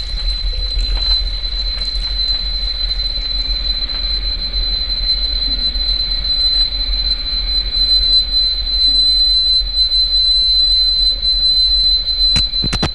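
Distorted, eerie sound design of a horror film's cursed videotape: a steady shrill whine held on one high pitch over a heavy low hum and static hiss, with a few sharp clicks near the end.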